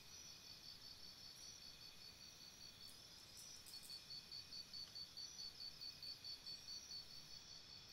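Faint rainforest insect chorus: steady high-pitched shrilling, joined from about halfway in by a fast, even pulsing chirp.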